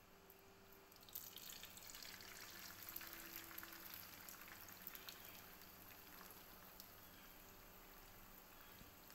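Beaten egg poured into hot oil in a frying pan, sizzling and crackling from about a second in, busiest over the next few seconds, then settling to a fainter steady sizzle.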